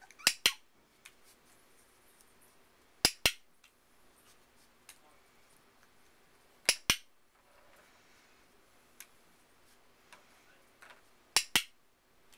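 Handheld dog-training clicker clicked four times, each a sharp double click of press and release, marking a puppy's sits for a food reward.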